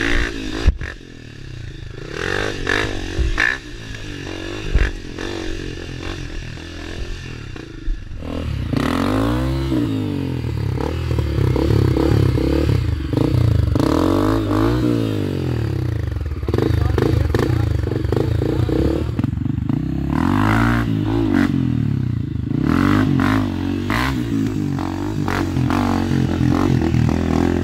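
Clattering and knocks for the first several seconds, then, from about eight seconds in, an off-road motorcycle engine revving up and down over and over.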